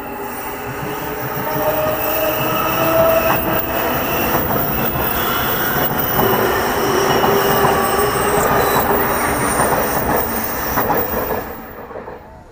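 Blue electric train passing close by on the elevated track: a steady rumble of wheels on rail with whining pitched tones and a few sharp clicks. It grows louder about a second in and fades away near the end.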